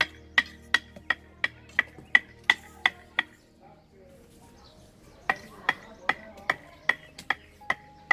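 Hand tool chopping into the wood of a Ficus bonsai's root base. Sharp strikes with a metallic ring come in a steady rhythm of about three a second, stop for about two seconds a little past three seconds in, then start again.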